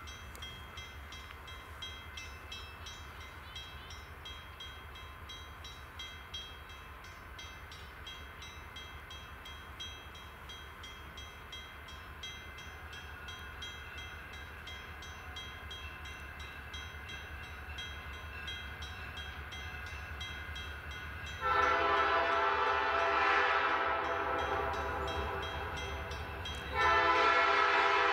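A diesel locomotive approaching in the distance sounds its air horn in two long blasts, the first about 21 seconds in and the second, louder one starting just as the first ends. Before the horn there is only a faint distant train rumble with the quick, regular dinging of a grade-crossing bell.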